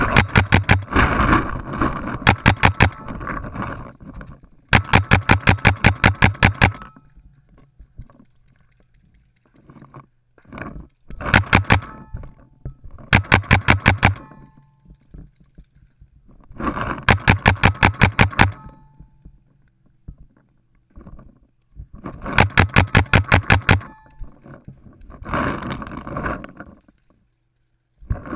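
Paintball marker firing rapid strings of shots, about six a second, in five or six volleys of one to two seconds each. Fainter scattered shots and noise fill the gaps between volleys.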